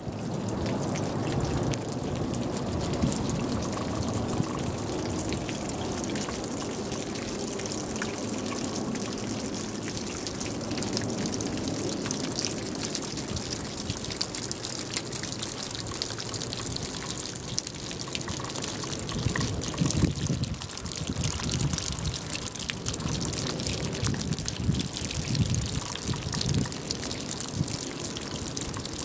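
Snowmelt dripping and trickling from the eaves of a thatched roof: a steady fall of many drops.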